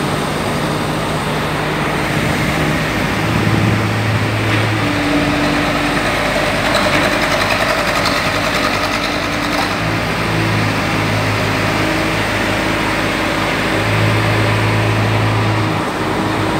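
Steady engine and machinery noise, with a low engine hum that comes and goes several times.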